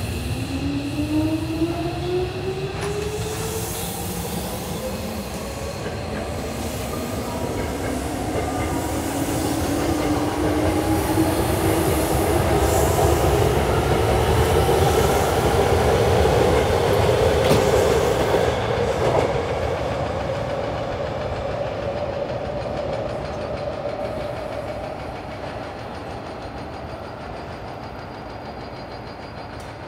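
Hankyu electric train pulling away from the station, its motor whine rising slowly and steadily in pitch as it gathers speed. It is loudest around the middle, then fades as the train moves off.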